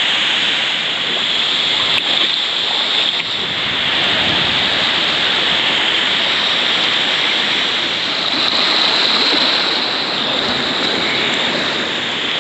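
River water rushing steadily over rocks, a loud, even roar of flowing water.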